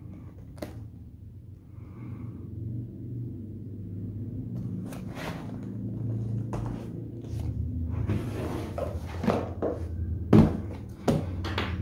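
Cardboard laptop box being handled and turned over on a table: scraping and rustling of the cardboard, growing busier in the second half, with a sharp knock a little after ten seconds as the box is set down flat and another knock about a second later, over a steady low hum.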